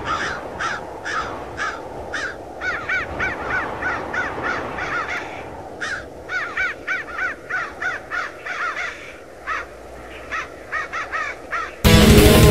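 Crows cawing in a quick run of short repeated calls, sometimes overlapping, over a steady low rushing noise. Near the end, loud distorted heavy metal guitar music cuts in suddenly.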